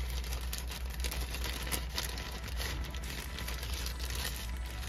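Hands handling plastic car trim and a power cable: irregular crinkling and small plastic clicks over a steady low hum.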